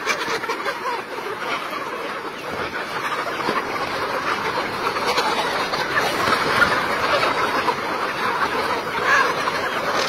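A flock of naked-neck chickens clucking, with many calls overlapping into one continuous sound that grows a little louder in the second half.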